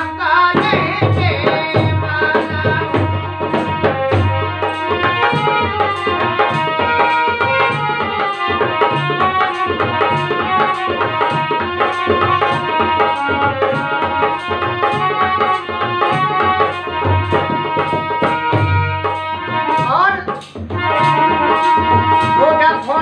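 Harmonium and dholak playing a North Indian folk tune: the harmonium's reeds hold sustained chords and melody over a steady dholak rhythm. A man's singing voice comes in at times, notably near the end after a brief drop in loudness.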